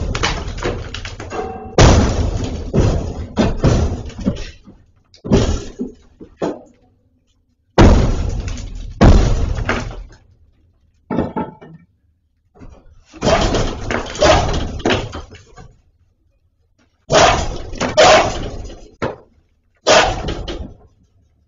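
Repeated heavy blows on a barred metal gate and the brick wall it is set in, each a loud bang with a ringing rattle of the bars, as the masonry is broken open and chunks of brick and plaster clatter to the floor. About a dozen blows come in clusters, with pauses of a second or two between them.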